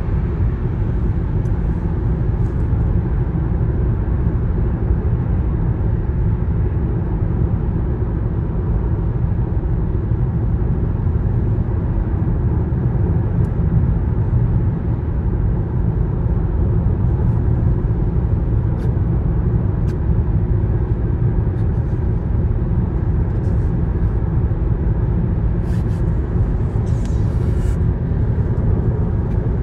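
Steady low rumble of tyre and engine noise from inside a car cabin cruising at motorway speed, with a few faint clicks near the end.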